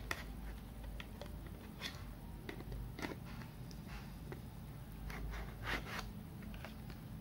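Light clicks and scrapes of an Orico 2588US3 2.5-inch hard drive enclosure being handled, its sliding cover pushed over the drive; a couple of slightly louder clicks come about three seconds in and near six seconds.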